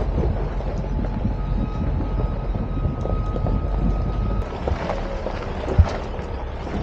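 Mitsubishi L200 pickup towing a caravan rolling slowly over a rough gravel track: a low, crackly rumble of tyres on stones and the running engine. About four and a half seconds in it turns quieter, and a single thump follows near the end.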